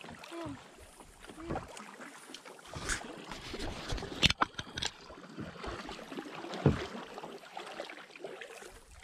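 Water lapping and splashing around kayaks on a river, with a few sharp knocks, the loudest about four seconds in.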